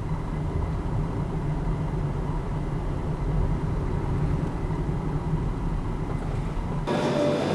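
Steady low rumble of a moving vehicle. Near the end it cuts abruptly to a brighter, different background.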